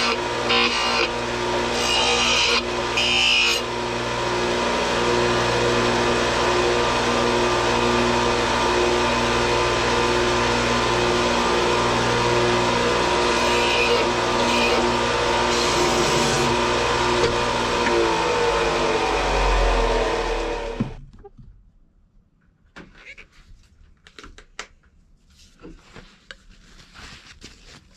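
Bench-top electric disc sander running steadily, with a wooden spoon pressed against the sanding disc in short scratchy passes. It cuts off suddenly about 21 seconds in, leaving faint handling clicks.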